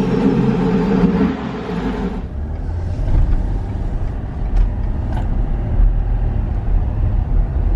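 2021 Ford F-250's 6.7 L Power Stroke V8 turbodiesel, still on its stock air intake, pulling as the truck drives off at low speed. About two seconds in the engine note drops away to a low, steady rumble.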